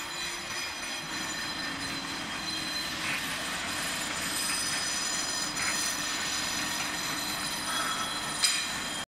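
Metalworking machinery running, among it a lathe turning a long steel barbell bar: a steady mechanical whir with high whining tones. A sharp metallic click comes about eight and a half seconds in.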